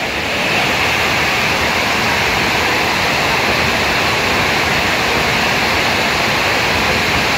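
Heavy rain falling steadily: a loud, even rushing hiss that swells slightly about half a second in and then holds.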